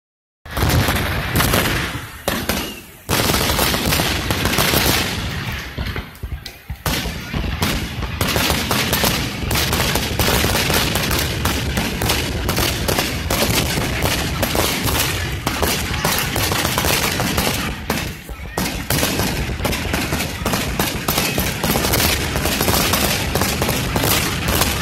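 Fireworks going off in rapid succession, a dense nonstop barrage of bangs and crackles with short lulls about three, six and eighteen seconds in.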